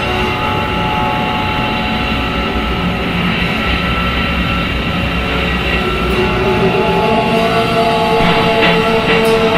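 Experimental noise music: a dense, steady drone of many held tones over a rumbling bed of noise, with a stronger mid-low tone swelling in about six seconds in and a few crackles near the end.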